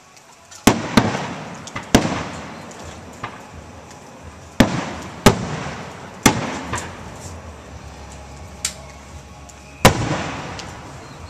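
Aerial firework shells bursting overhead: about seven sharp booms, each trailing off in a rolling rumble, with a few fainter pops in between.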